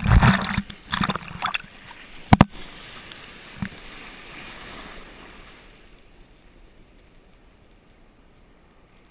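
Surf water splashing and sloshing over the nose of a surfboard right at the camera, with a couple of sharp knocks about two and a half seconds in. It then settles into a steady rush of foamy water that grows quieter after about six seconds.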